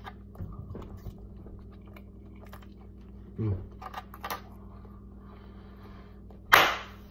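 Close-miked eating sounds: chewing with small wet mouth clicks. There is a short mouth noise about three and a half seconds in and a sharp, loud rustle near the end.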